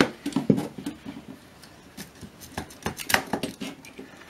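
Clicks, scrapes and knocks of a plug-in circuit module being worked loose by hand and pulled out of a metal equipment chassis, sharpest right at the start and about half a second in, with another cluster about three seconds in.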